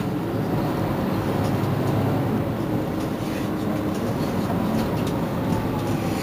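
Mercedes-Benz Citaro C2 city bus running steadily while stationary at a stop, a continuous low engine hum.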